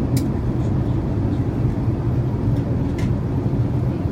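Steady low drone of an Airbus airliner's cabin in flight, the engine and airflow noise holding an even level. Two faint clicks come through, one near the start and one about three seconds in.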